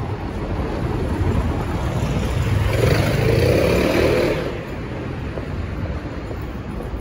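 City street traffic noise, with a motor vehicle passing close that swells to its loudest about three to four seconds in and then fades quickly.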